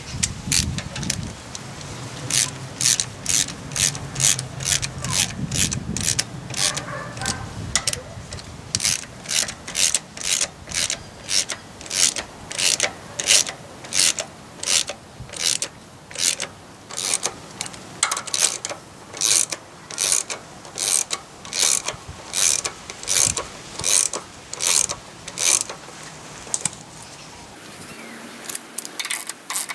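Ratchet wrench clicking in quick, evenly repeated strokes, about two a second, as a fastener on the floating rear axle's hub is turned to free the axle from the hub. There is a low rumble of handling in the first few seconds.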